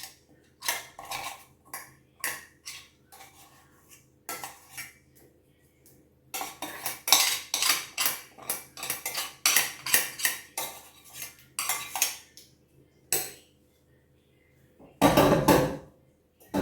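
Pots, pans and metal utensils clinking and clattering as they are handled, with a dense run of rapid clinks in the middle and one heavier clunk near the end.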